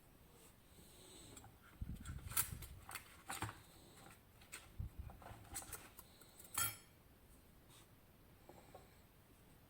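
Small sharp clicks and knocks from metal lock parts and tools being handled while a West 955 lock is taken apart, with a dull thump about two seconds in and the loudest click past the middle.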